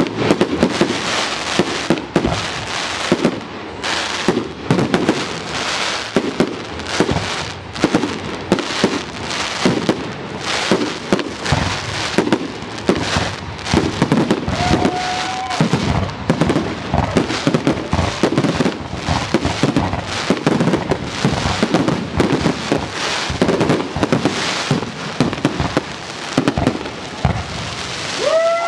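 Fireworks display: aerial shells bursting in a dense, continuous run of bangs and crackling, several a second.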